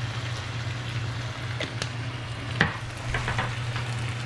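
Chicken and vegetables sizzling in a hot frying pan, with a few light knocks of a utensil against the pan, the loudest about two and a half seconds in, over a steady low hum.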